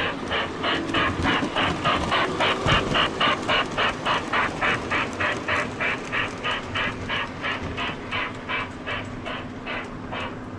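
O gauge model steam locomotive's electronic sound system chuffing steadily, about four chuffs a second, slowing and fading slightly near the end, over a steady low hum.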